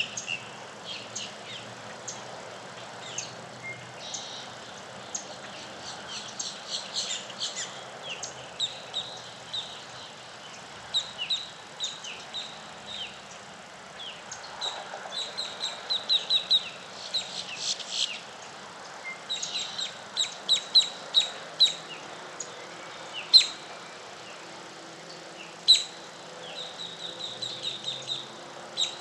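Several birds chirping and calling in a dawn chorus: many short high chirps and quick runs of repeated notes, with two sharper, louder calls near the end, over a steady background hiss.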